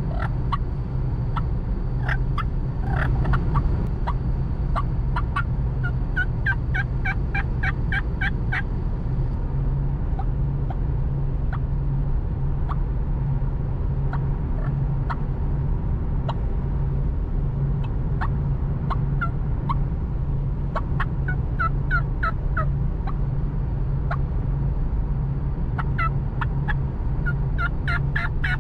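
Diaphragm turkey mouth call worked in runs of short, sharp yelping notes, several a second, with pauses between the runs. A steady low road rumble from inside the moving car runs beneath.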